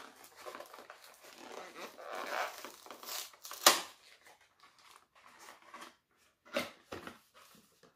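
Crinkling and tearing of a small cardboard gift box being opened by hand, with one sharp snap about halfway through and two light knocks near the end.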